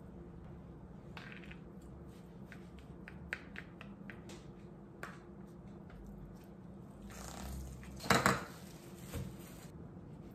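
Kitchen work sounds: scattered light clicks and taps of utensils and dishes, then a louder clatter about eight seconds in and a single knock after it, over a steady low hum.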